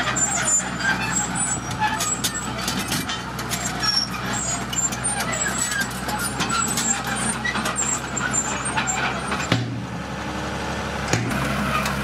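Dump truck's diesel engine running as the hydraulic hoist tips the bed, with stones clattering out as the load of red gravel slides down. About ten seconds in, this gives way to the steady engine of a Komatsu D41PX crawler bulldozer.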